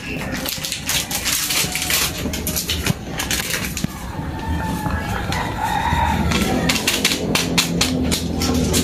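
Plastic seasoning sachet crinkling in the hand as sinigang mix is poured into a simmering pan, a run of sharp crackles. A rooster crows in the background about four to six seconds in.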